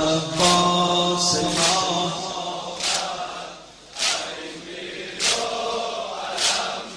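A male voice chants a Shia Muharram lament (noha) in long held notes, with a group of voices joining later. Sharp slaps land about every 1.2 seconds, in the rhythm of matam chest-beating.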